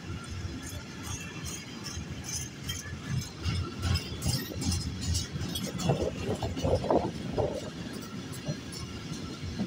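Freight train of silo wagons rolling past on the rails: a steady rumble of wheels on track with scattered clicks, and a few louder knocks about six to seven seconds in.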